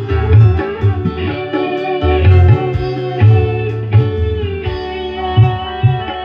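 Music with a plucked electric guitar melody over a heavy, pulsing bass line.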